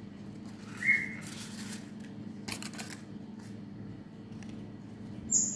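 Paper cupcake liners rustling as they are set down on the table, over a steady low hum. A short rising squeak about a second in and a brief, very high chirp near the end are the loudest sounds.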